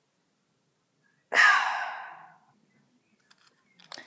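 A person sighs once, a loud breathy exhale close to the microphone that fades away over about a second. A few faint clicks follow near the end.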